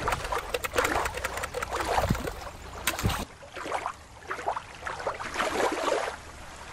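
Shallow water lapping and splashing against a rocky shoreline, with a low rumble underneath. About three seconds in it cuts abruptly to a quieter, different recording of water.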